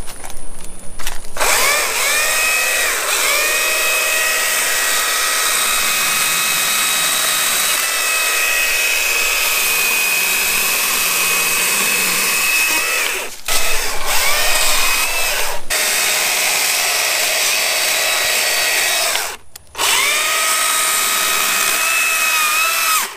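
Stihl MSA 161 T battery-powered chainsaw running with a steady electric whine as it cuts through shrub branches and trunk, the pitch sagging each time the chain bites into the wood. It starts about a second in, cuts out briefly twice, and stops just before the end.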